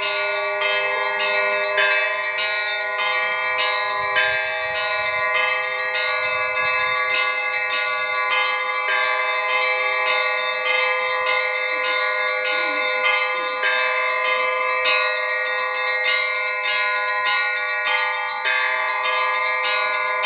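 Church bells ringing for Easter: a quick, even run of strokes, two to three a second, over the sustained hum of the bells.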